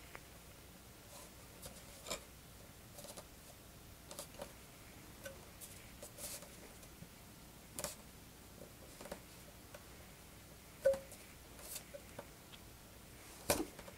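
Scattered light clicks and taps of plastic wing-strut fittings being worked and pressed into the foam wings of an E-Flite PT-17 model biplane, with a sharper click about eleven seconds in and another near the end.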